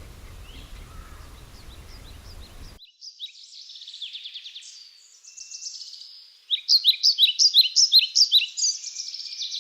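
Faint outdoor ambience with a few distant bird chirps, then, after a sudden change about three seconds in, a songbird singing clearly: quick high trills, then from about two-thirds of the way through a loud run of sharp repeated notes, about four or five a second.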